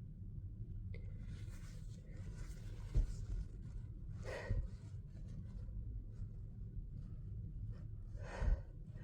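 A person breathing and gasping between sneezes in a sneezing fit, with sharp gasping breaths about four seconds in and again near the end. A dull thump comes about three seconds in.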